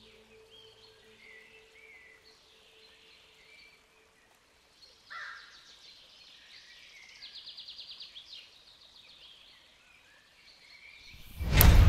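Woodland birds chirping and trilling, including a rapid trill about two-thirds of the way in, over a faint steady hum that fades out in the first second. Near the end a sudden loud hit comes in and music starts.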